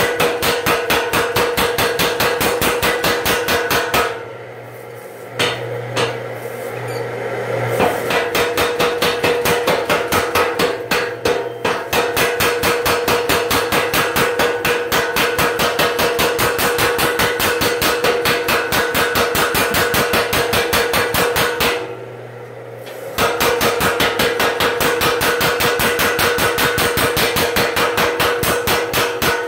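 Home-built power hammer pounding a glowing billet between its dies in rapid, even blows. It stops briefly twice, and a low hum shows in the gaps.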